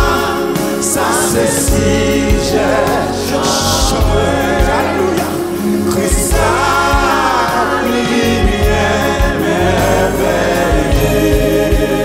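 Gospel worship song sung in Haitian Creole by a lead singer and a small group of backing vocalists, over instrumental accompaniment with sustained low notes.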